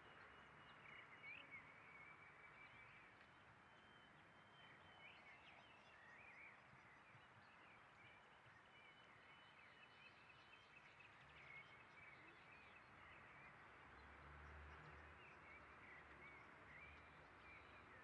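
Faint park ambience of many small birds chirping and twittering over a soft steady hiss, with a low distant rumble swelling in about two-thirds of the way through.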